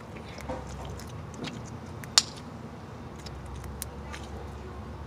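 Handling of homemade slime and its plastic containers: a few scattered small clicks and pops, one sharp click about two seconds in, over a low steady hum.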